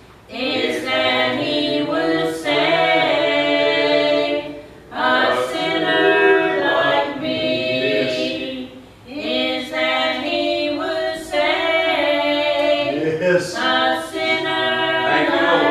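Three women singing a hymn together without instruments, in long held phrases with short breaks for breath about five and nine seconds in.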